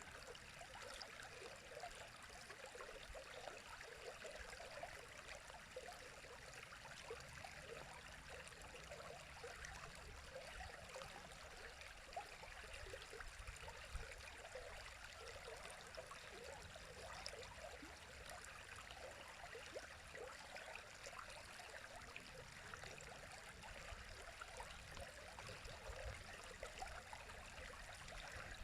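A river running: a faint, steady rush of water with many small burbling splashes.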